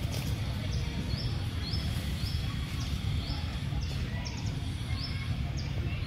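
Outdoor ambience of a steady low rumble, with a small bird's short high chirps repeating about twice a second.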